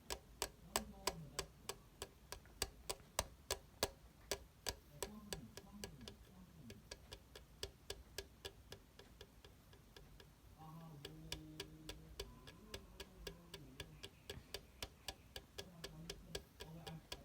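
Faint, steady ticking at an even rhythm of about three ticks a second.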